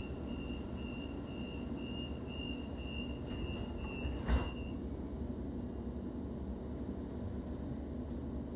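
Stationary electric train carriage humming low while a high, thin warning tone sounds for about five seconds. A single sharp thud comes about four seconds in, consistent with the doors shutting before departure.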